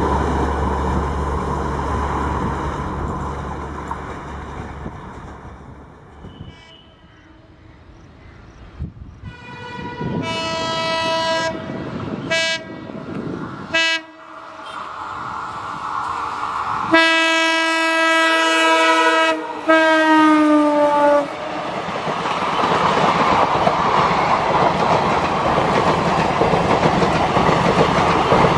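WDG-4 (EMD GT46MAC) diesel locomotive passing at speed. A low engine rumble fades, then the horn sounds several blasts, the last one long with its pitch dropping as the locomotive goes by. The coaches' wheels then rattle steadily over the rails.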